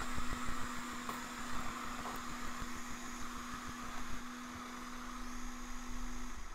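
Hot air rework station blowing while it reflows the solder under a small filter component on a phone logic board: a steady hiss of air with a low hum. Both cut off near the end as the hot air stops.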